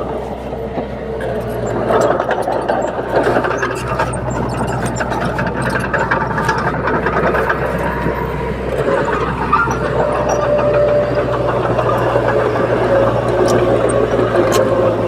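Komatsu D30P bulldozer's diesel engine running steadily under work, with scattered clanks and knocks from the machine, mostly in the first half.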